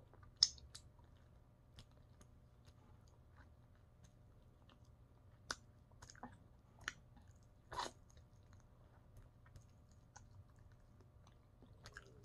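Quiet, close-up chewing and biting of breaded chicken in sauce, with scattered sharp crunches and wet mouth clicks. The strongest comes about half a second in, with others around the middle.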